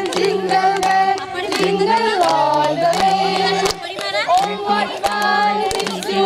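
A group of women and children singing a tune together and clapping along.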